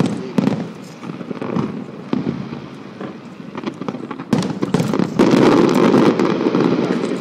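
Aerial fireworks going off: a few scattered bangs, then from about four seconds in a dense, continuous run of rapid cracks and bangs as many shells burst at once.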